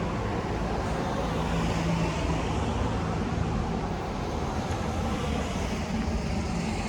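Steady city street noise: a low rumble of traffic, with a faint engine hum a couple of seconds in.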